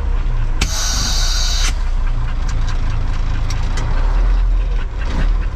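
A 48-year-old Mack truck's diesel engine running with a steady low rumble. About half a second in comes a sharp hiss of released air lasting about a second, an air brake letting off.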